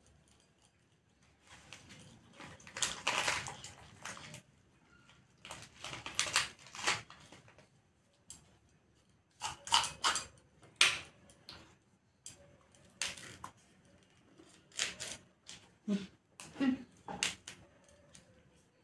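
Cauliflower being broken into florets by hand: crisp snapping and crunching in irregular bursts, with short pauses between.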